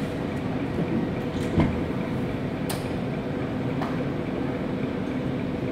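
Standing IC2 double-deck intercity train humming steadily. A thump comes about one and a half seconds in, and a sharp click a second later.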